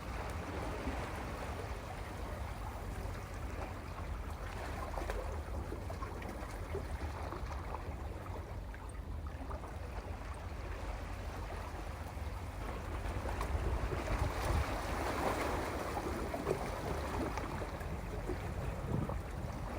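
Sea waves washing and churning against a rocky shore, a steady rushing wash with a deep low rumble, surging louder for a few seconds about two-thirds of the way through.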